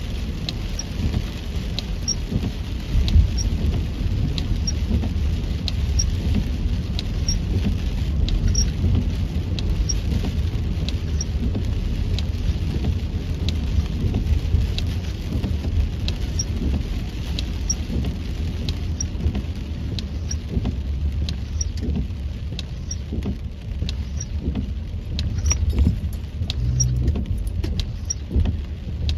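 Rain falling on a moving car, heard from inside the cabin over a steady low road and engine rumble, with a light tick repeating about one and a half times a second.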